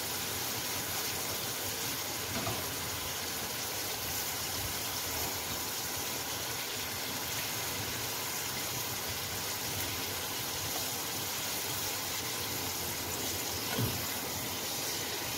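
Prawns frying in hot oil in a karahi, a steady sizzling and bubbling as the water they released boils off.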